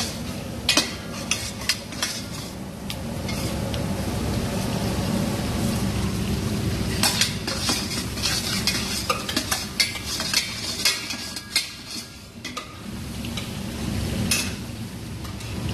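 Chopped onion, garlic and carrot sizzling in oil in a steel pot while a metal spoon stirs them, scraping and clicking against the pot again and again.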